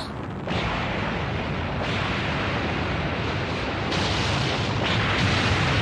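Cartoon sound effect of a stone building collapsing: a continuous rumbling rush of noise. It starts about half a second in and grows louder near the end.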